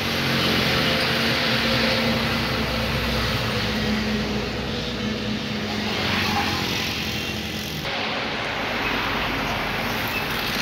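Steady engine drone with a broad hiss over it, swelling in at the start and holding through.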